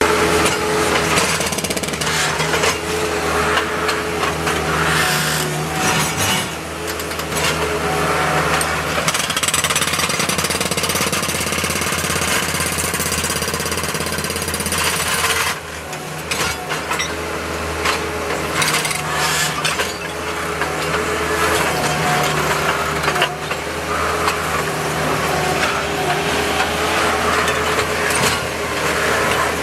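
Hydraulic breaker on a Bobcat skid-steer loader hammering concrete in a rapid, continuous rattle, over the steady drone of the loader's engine. The hammering drops out briefly about halfway through.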